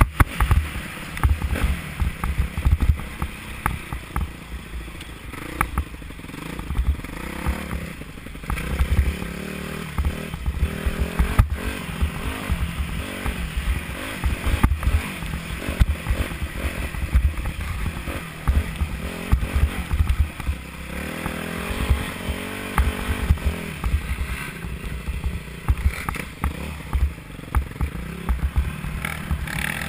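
Off-road motocross bike engine revving up and down as it is ridden hard over a rough dirt track, heard from a helmet-mounted camera. Heavy low wind buffeting on the microphone and occasional knocks from bumps run throughout.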